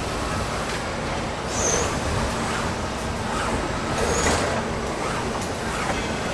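Vehicle assembly plant floor noise: a steady din of line machinery, with a couple of brief high-pitched hisses and a few light knocks.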